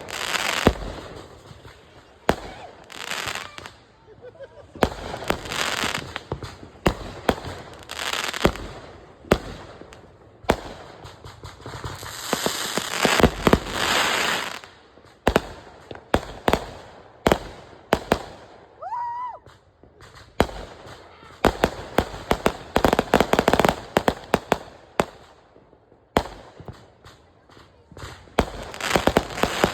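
Consumer fireworks going off in quick succession: many sharp bangs and pops, with stretches of dense crackling. A short whistling tone rises and falls about two-thirds of the way through.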